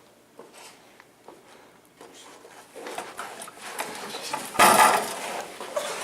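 Scuffling, with clattering knocks and rustles in a small room, building from about two seconds in to a loud burst of noise just before five seconds.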